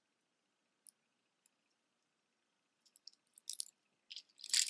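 Mostly quiet, with a faint tick or two of beads being handled, then costume jewelry clicking and clinking in short sharp taps as a hand rummages through a pile, growing busier near the end.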